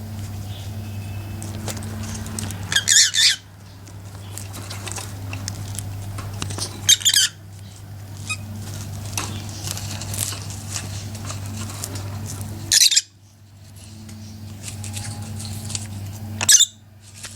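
Small pet parrots, Fischer's lovebirds and budgerigars, chattering, with four short, loud, shrill squawks about four seconds apart. A steady low electrical hum runs underneath.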